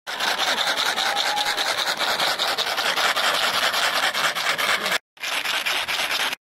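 Dense, steady rubbing noise close to the microphone, broken off briefly about five seconds in.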